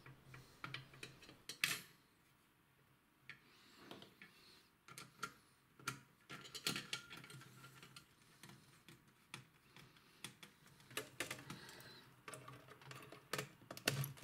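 Faint, irregular clicks and taps of a plastic cooling fan, its wire grille and a screwdriver being worked against a power supply's sheet-metal rear panel as the fan is screwed in place. The clicks come in small clusters, a few seconds apart.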